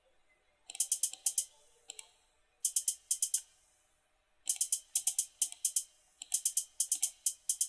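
A percussion pattern programmed in FL Studio's step sequencer playing back. It comes as groups of quick, bright ticks, a second or two apart at first and running almost continuously from about halfway through.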